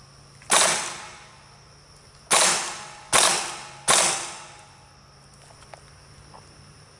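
Four airsoft gun shots, each a sharp crack with a hiss that fades over about half a second. The first comes about half a second in, and three more follow close together from about two seconds in.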